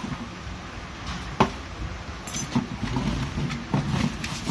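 Headphone packaging being handled and unpacked: cardboard and plastic rustling and knocking, with a sharp click about a second and a half in and another a second later.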